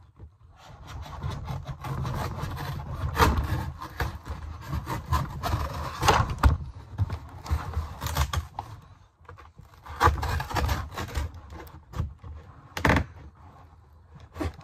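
A dull knife scraping and sawing at a cardboard box, in irregular strokes with a few sharp knocks against the cardboard.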